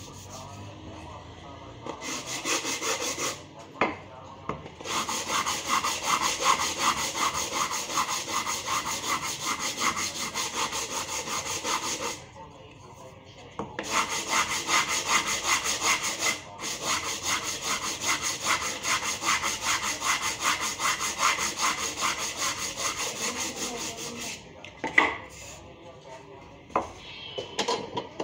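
A wooden board being sanded by hand: fast, even back-and-forth rubbing strokes on the wood, stopping briefly about twelve seconds in and ending near twenty-four seconds, followed by a few light knocks of wood on the work surface.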